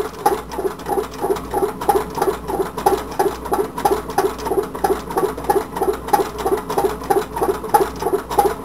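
Homemade tin-can Stirling engine running, with a steady, rhythmic doink about three times a second. The sound is the bottom of the can flexing with each stroke.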